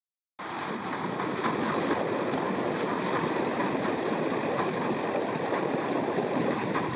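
Tractor pulling a New Holland Haybine mower-conditioner through standing lucerne: a steady rushing noise of the engine, cutter and crop, starting about half a second in.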